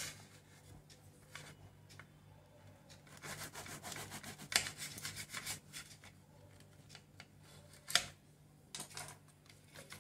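Knife sawing through the crisp baked crust of a potato-filled puff: a run of short crackling, scraping strokes about three to five and a half seconds in, a sharp click near eight seconds, and a few more strokes just after.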